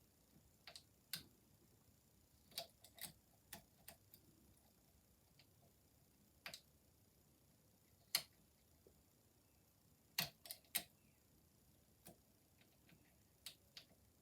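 Lever-lock picks working inside a Chubb Cruiser lever padlock: short metallic clicks and ticks at irregular intervals, some in quick clusters of two or three, with near silence between them.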